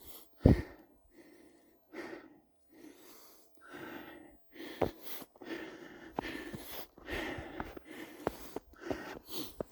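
Footsteps crunching through snow, an uneven run of steps, with two sharper thuds about half a second in and near five seconds.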